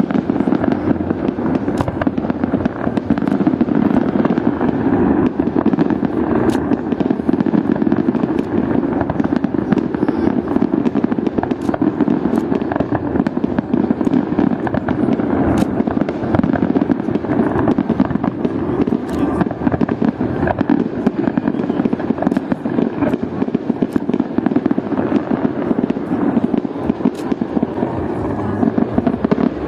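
Fireworks display: a continuous barrage of bangs and crackling, many reports a second without a pause.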